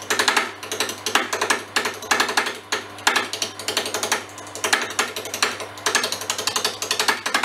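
Carbide cutter chipping at a split olive-wood blank spinning on a wood lathe: a rapid, dense chatter of the tool striking the still out-of-round wood while roughing it to a cylinder, over a steady low hum.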